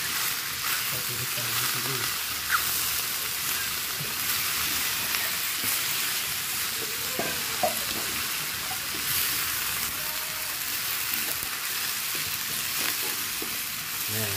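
Carrots and napa cabbage sizzling in hot oil in an aluminium wok, stirred constantly with a metal spatula that scrapes and taps the pan. A sharper clack of the spatula on the wok comes about two and a half seconds in and again just before eight seconds.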